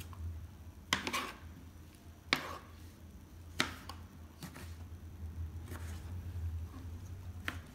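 Kitchen knife dicing tomatoes on a plastic cutting board: about six sharp knocks of the blade on the board, irregularly spaced, over a steady low hum.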